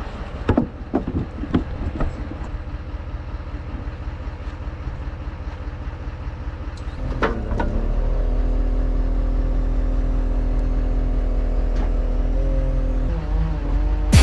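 Tow truck running and driving, heard at its rear by the wrecker's boom and wheel lift: a steady engine drone with a few clanks and rattles of the tow gear in the first two seconds, and the engine note louder and steady from about eight seconds in, shifting slightly in pitch near the end.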